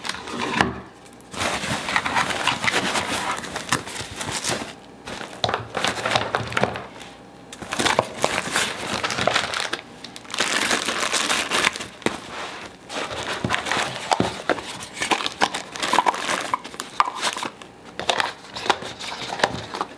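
Rustling and crinkling of a Think Tank Retrospective 7 fabric shoulder bag and the drone accessories being handled and packed into its divided compartments. The sound comes in bursts of a second or more, with short pauses between them.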